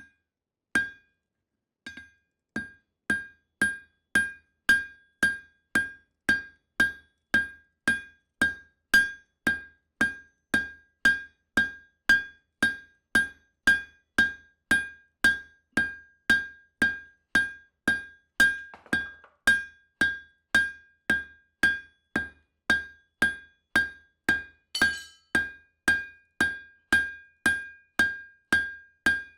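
Blacksmith's hand hammer striking steel on an anvil at a steady rhythm, about two blows a second, each blow ringing out with a clear metallic tone. This is hand-forging a knife blade.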